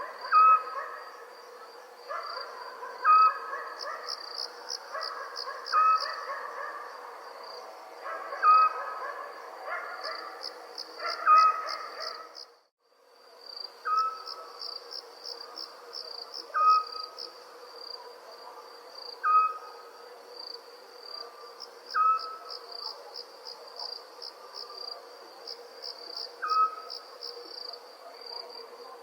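Crickets chirping in a steady high pulsing trill, with an owl's short call repeating about every three seconds as the loudest sound. All sound drops out for a moment about halfway through, then resumes.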